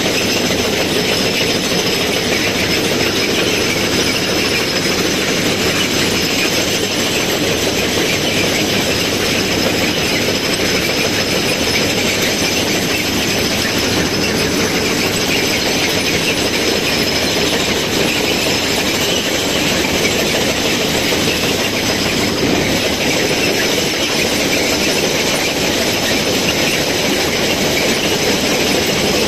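Railway ballast cleaning machine working at close range: a loud, steady mechanical din of the machine running while its excavating unit churns through the track ballast stones.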